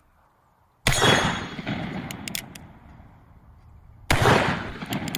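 Two gunshot sounds going with a toy cowboy pistol, each a sudden bang followed by a long fading echo, the second about three seconds after the first.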